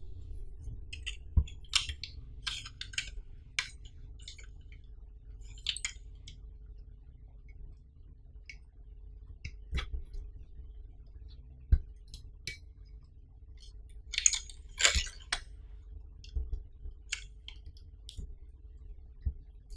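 Scattered light clicks and taps of a tripod's metal legs and plastic fittings being handled and shifted on a wooden tabletop, some in short clusters.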